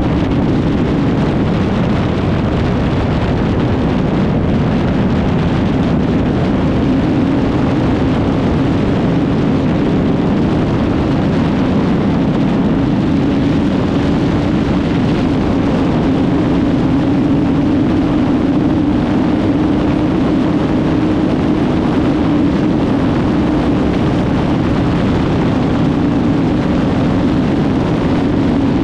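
Kawasaki Z1000 R's inline-four engine running hard at high speed, around 180–195 km/h, with a steady engine tone under a heavy rush of wind noise on the microphone. The engine tone rises a little partway through and falls back slightly near the end.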